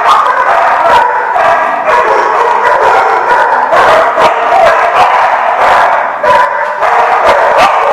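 A pack of dogs barking and yipping at once, a loud continuous din of overlapping barks.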